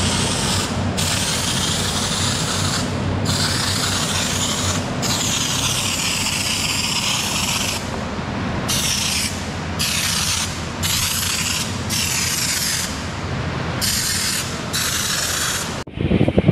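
Aerosol spray can, worked by a trigger handle, hissing in about a dozen bursts of half a second to nearly three seconds with short breaks between, over a steady low background noise. The hiss stops suddenly near the end.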